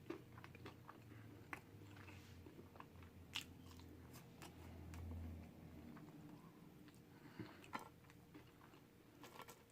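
Faint close-up chewing and biting of food, with scattered sharp wet mouth clicks, the loudest about three and a half seconds in and two more close together near the eight-second mark.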